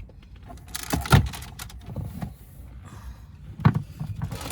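Plastic car interior trim being pried and pulled loose, with scattered clicks and knocks as the clips give. The two loudest are about a second in and near the end.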